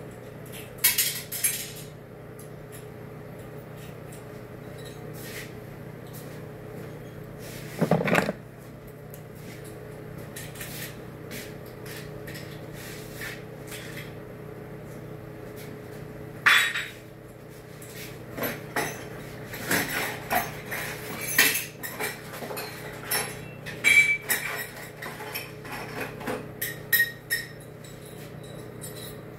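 Small metal partition hardware clinking and tapping as it is handled and fitted at a toilet-partition pilaster: a few separate clinks at first, then a busier run of clinks in the second half, over a steady low hum.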